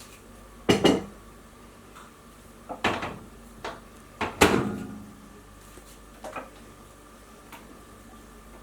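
Clinks and knocks of kitchen crockery and a spoon: several separate sharp knocks, the loudest about four and a half seconds in with a short ringing tail.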